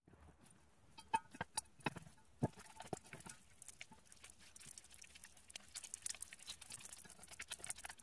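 Borax-activated glue slime being kneaded by hand in a metal bowl: faint sticky clicks and squelchy pops, a few louder ones in the first couple of seconds, then a denser crackle of small clicks. The slime is overactivated.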